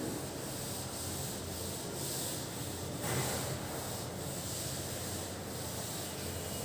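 A duster wiping chalk off a chalkboard in repeated back-and-forth strokes, a scratchy rubbing.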